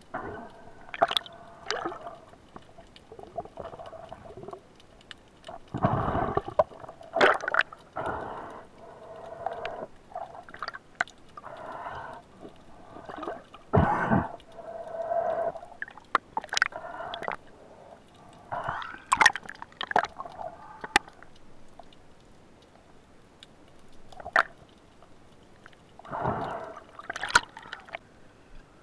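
Muffled water sounds heard underwater: irregular gurgling and swishing, with scattered sharp clicks and knocks and several louder bursts of water movement as the diver handles a speared seabass and comes up to the surface.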